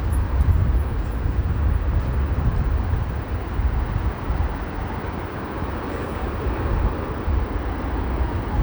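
Steady roar of rushing water from Takakkaw Falls and its river, with a heavy low rumble.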